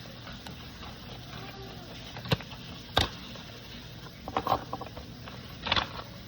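Handling noises from opening and examining a small item: a few short sharp taps and clicks, two single ones in the middle and small clusters near the end, over a steady low hum.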